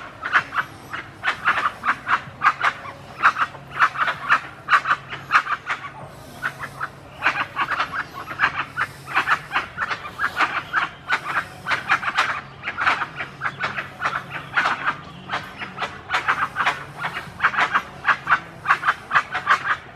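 A group of dusky-legged guans calling: quick runs of loud, short calls, several a second, in bouts with a brief lull about six seconds in.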